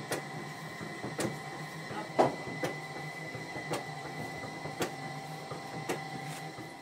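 Electric dough-kneading machine running, its metal arms turning through a heavy potato bread dough: a steady motor hum with a knock about once a second as the arm goes round.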